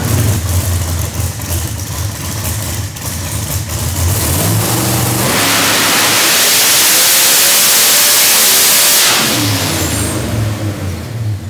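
Noonan 565 ci Hemi with a ProCharger F-4X supercharger, running on a hub dyno. It idles for about four seconds, then the revs climb under full throttle with a loud rush for about four seconds. The throttle comes off and the revs fall back to idle near the end.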